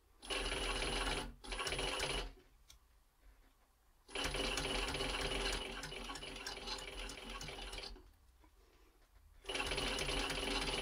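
Post-bed sewing machine with top and bottom roller feed stitching leather, running in four spells with brief stops between; the longest run lasts about four seconds.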